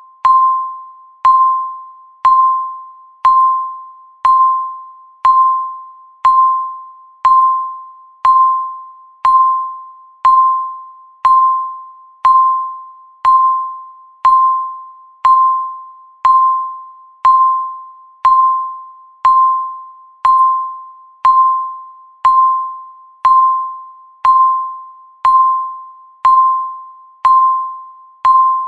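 Countdown timer tick sound effect: a sharp electronic tick with a short ringing tone that fades, repeating evenly once a second.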